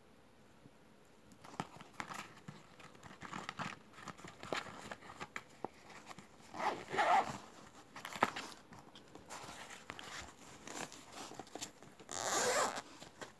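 Zippered fabric pouches being handled: light rustling, clicks and taps of small items, with a zip pulled about halfway through and a louder zip pull near the end.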